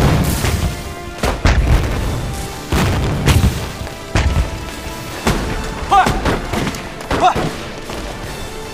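Film sound effects of explosions: a series of deep booms and thuds, the loudest at the start and several more over the next seven seconds, gradually thinning out, over a dramatic music score.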